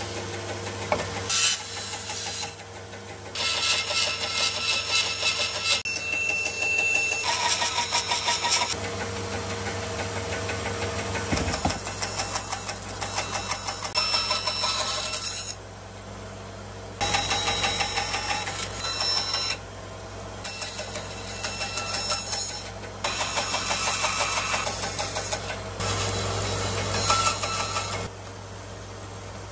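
Bandsaw running and cutting through a thick block of wood, the blade noise loud and dense while it cuts, dropping to a quieter run several times between cuts.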